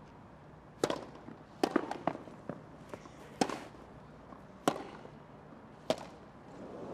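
Tennis rally: a ball struck back and forth by racquets, a sharp pop about every second and a quarter, six strikes in all.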